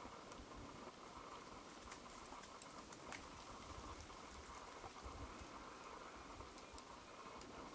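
Near silence: faint steady outdoor hiss with a light low rumble and a few scattered soft ticks.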